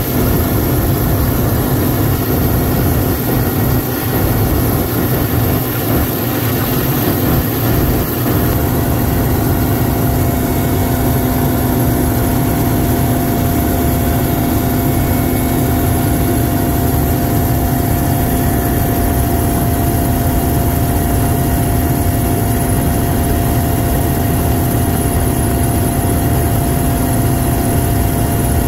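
Mi-8MTV-1 helicopter in flight, heard from on board: the loud, steady running of its twin turboshaft engines and main rotor, a dense low rumble with a few constant whining tones over it.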